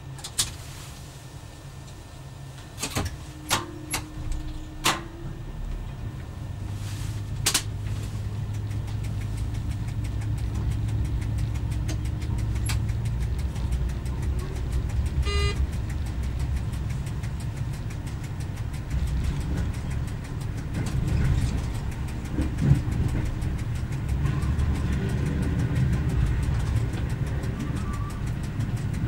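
Diesel engine of a Y1 railcar rebuilt with Volvo bus engines, heard from the driver's cab, running and growing louder after about six seconds as the railcar gets moving over the station points. A few sharp clicks come early, and a short beep sounds about halfway through.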